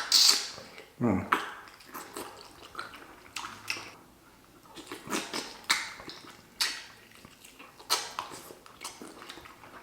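Close-miked eating of a seafood boil: irregular wet chewing, smacking and slurping sounds with sharp little clicks. A short falling vocal sound comes about a second in.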